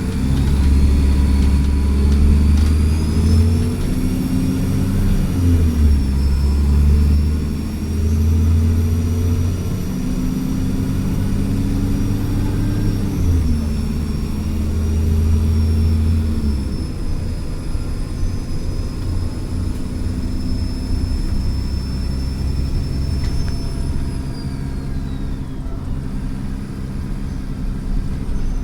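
Dennis Trident double-decker bus's diesel engine accelerating hard, climbing in pitch and dropping back at gear changes about six, thirteen and sixteen seconds in, then running more evenly. A high turbo whistle rises in the first few seconds, holds, and dies away near the end.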